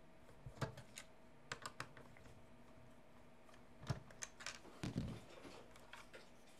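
Faint, irregular clicks and light knocks from a hand Phillips screwdriver backing screws out of the base of a Hear Back PRO mixer, and from the unit being handled on a table. A soft thump comes about five seconds in.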